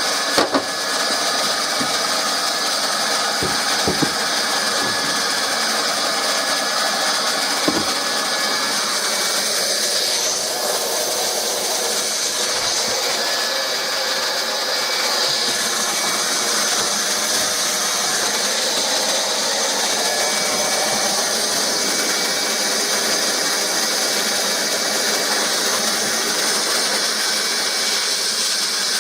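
Hot-air plastic welding gun running with a steady blowing hiss while welding the seams of a plastic filter box. A few light knocks come in the first several seconds.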